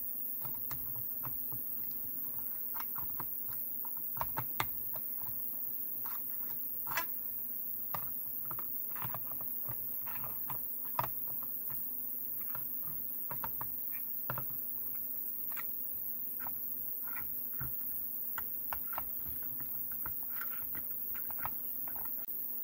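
Irregular small clicks and taps of fingers handling plastic connectors and parts on a scooter battery pack's circuit board, over a faint steady hum.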